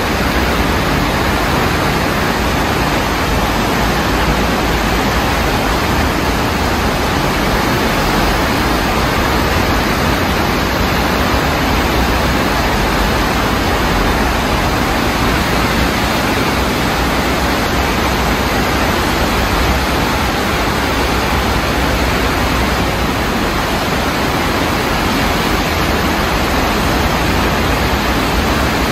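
Fast-flowing floodwater rushing in a steady, loud, unbroken wash of water noise.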